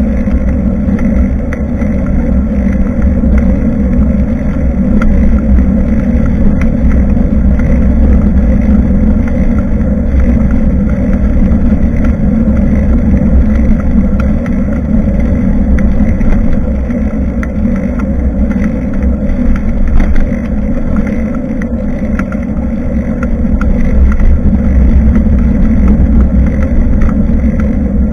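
Steady, loud wind rumble on a bike-mounted action camera's microphone while cycling, mixed with the rolling noise of the bicycle.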